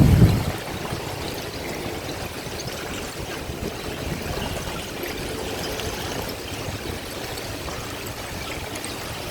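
Ice floes drifting on a river current: a steady rushing, hissing wash with faint scattered ticks. A brief low rumble sounds in the first half second.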